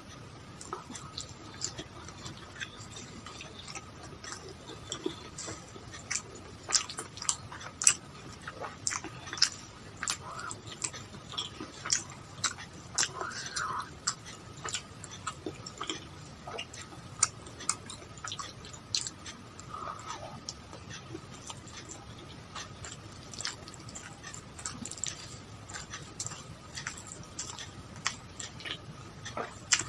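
Close-miked chewing of a person eating, with frequent irregular sharp mouth clicks and crunches.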